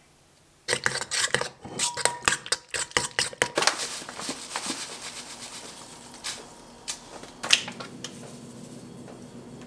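A quick run of sharp clicks and clinks in a stainless steel mixing bowl, then a soft hiss of ingredients being poured in, followed by a few single clinks.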